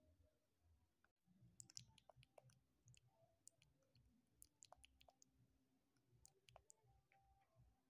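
Near silence, with faint scattered clicks and soft low rumbles starting about a second in.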